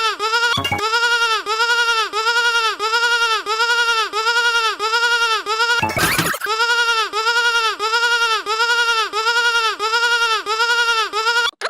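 Sheep bleat sound effect looped over and over: the same short bleat repeats about twice a second without a break. A brief noisy burst cuts in about half a second in and again about six seconds in, and the loop drops out for a moment just before the end.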